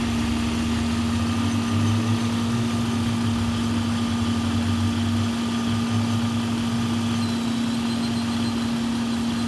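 Vehicle engine idling steadily, with a constant hum running through it, while its high-output alternator charges the battery. The low rumble thins out about seven seconds in.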